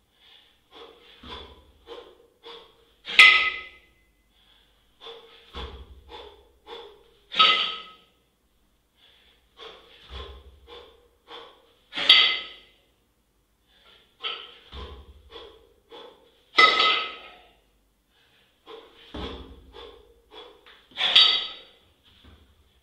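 A lifter's forceful breathing through a set of double kettlebell jerks. The cycle repeats about every four and a half seconds: a run of short breaths, a low thud, then one loud sharp exhale.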